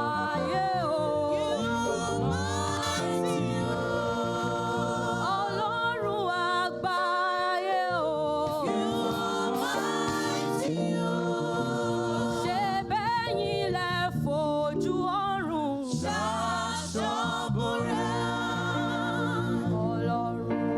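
Choir singing praise music, several voices with vibrato over sustained low notes.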